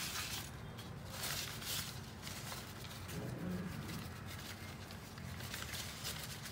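Paper towel rustling as green grapes are rubbed dry in it, in several short strokes mostly over the first two seconds, over a faint low hum.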